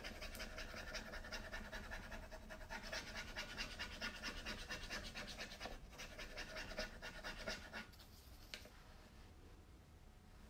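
Wooden transfer stick scraping quickly back and forth over the plastic backing sheet of a rub-on furniture transfer, a fast, even scratching. It stops about eight seconds in, leaving a faint single click.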